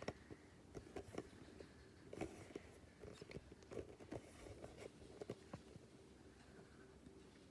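Near silence: quiet room tone with a faint steady hum and scattered faint clicks and rustles, mostly in the first six seconds.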